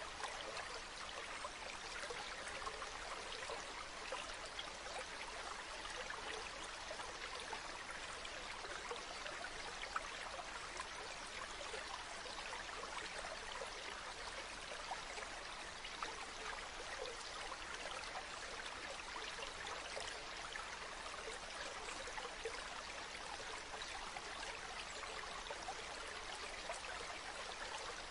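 Stream water running steadily, full of tiny splashes and trickles.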